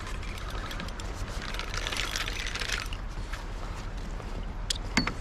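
Water trickling and lapping against a plastic fishing kayak's hull, in uneven gushes, over a steady low rumble. A few sharp clicks come near the end.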